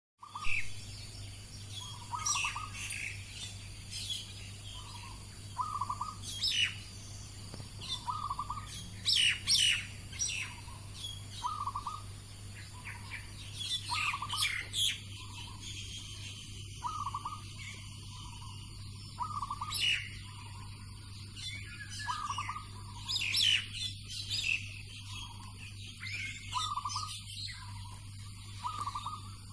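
Zebra dove cooing in short phrases repeated every second or two, while a starling gives sharp whistles and chirps over it, over a steady low hum.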